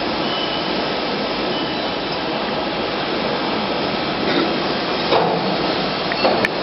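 Hydraulic injection moulding machine running: a steady mechanical noise, with a few knocks in the second half and a sharp click near the end.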